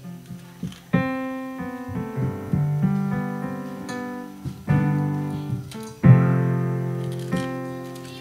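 Background piano music: chords struck every second or two, each ringing out and fading.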